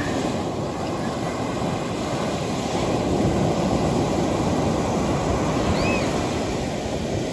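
Gulf of Mexico surf breaking close by and washing up a sandy beach, a steady rush of water.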